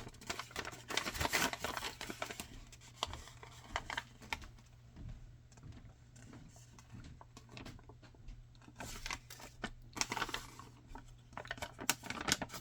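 Hands handling unboxing packaging: plastic and paper crinkling with scattered small clicks and knocks, busiest at the start and again near the end, quieter in the middle, over a faint steady low hum.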